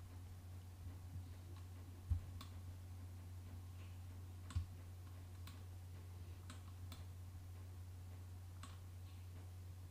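Scattered clicks of a computer mouse and keyboard, about half a dozen spread unevenly, with two soft low knocks about two and four and a half seconds in, over a low steady hum.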